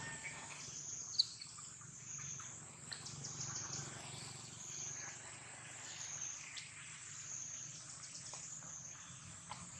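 Outdoor insect drone, a steady high hiss that slowly rises and falls in pitch, with a few brief high chirps scattered through it, the sharpest about a second in.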